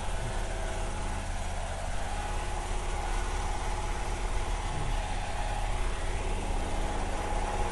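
Generator engine running steadily, a loud continuous hum.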